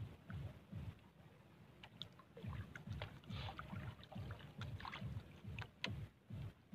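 Water lapping against the hull of a small bangka boat: soft low knocks repeating about three times a second, with faint scattered clicks.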